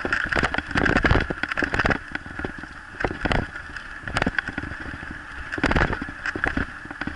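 A kick scooter's wheels rolling fast over a rough dirt trail, with a steady rattle and frequent irregular knocks from bumps and ruts.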